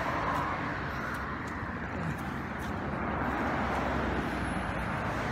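Road traffic: cars passing on a road, a steady noise of tyres and engines.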